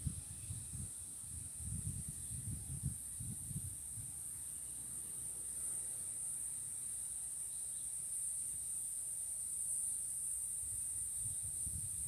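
Steady high-pitched insect chorus, a little louder in the second half, with low gusts of wind rumbling on the microphone during the first few seconds.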